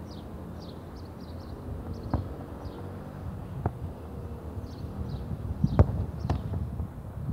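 A football being struck: a couple of light touches, then a sharp kick about six seconds in, the loudest sound, and a second thud half a second later as the ball reaches the goalkeeper.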